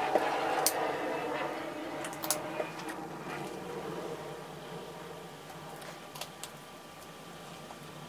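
Thin plastic cups and a plastic bottle of pouring medium handled on a table while medium is poured into the paint cups: a soft rustling noise that fades over the first few seconds, with a few light clicks and taps.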